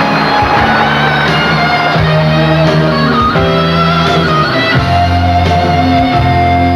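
Live pop-ballad band playing an instrumental passage: strummed guitar under a slow melody line, with a long held note near the end.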